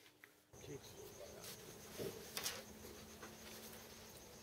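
Faint steady high-pitched insect chirring, with a few light scrapes and taps about one and a half, two and two and a half seconds in as a small wooden casting pattern is handled at the bench.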